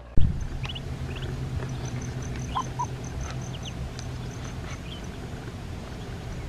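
Ducklings peeping in short, high, falling calls, with two short lower calls about two and a half seconds in, over a steady low hum.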